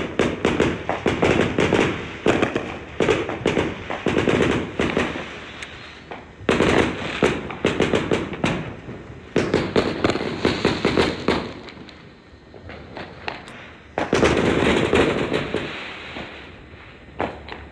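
Many fireworks going off at once: dense, rapid, overlapping bangs and crackles that come in several waves, with short quieter lulls between them.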